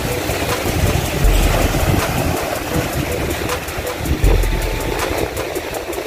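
Strong wind buffeting the microphone in rumbling gusts, about a second in and again about four seconds in, over the steady wash of waves breaking on a rocky shore.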